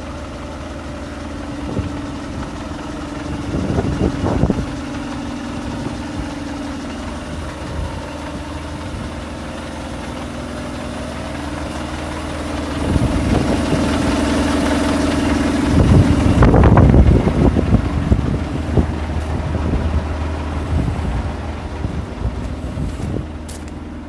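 1986 Volvo FL613 lorry's six-cylinder diesel engine idling steadily, growing louder for a few seconds past the middle and then easing back.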